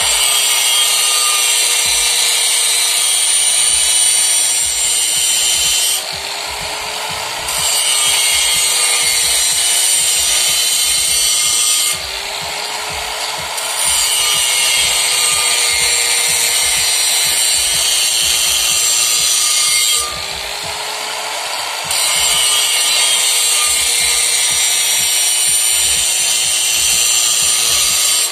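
Electric angle grinder grinding the inner braking surface of a pickup's brake drum: a steady motor whine under a loud, hissing metal-on-metal grind. The grinding eases off briefly three times, leaving the motor running more lightly, then bites in again.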